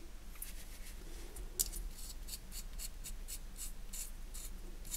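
Soft, scratchy ticks at about four a second as fingers roll the knurled worm screw of a small titanium pocket adjustable wrench to move its jaw, with one sharper click about one and a half seconds in.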